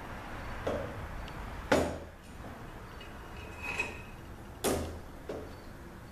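Metal parts of a Ford 4R100 automatic transmission clanking as they are set down and handled on a metal workbench. Two sharp clanks about three seconds apart, lighter knocks between them, and one short metallic ring.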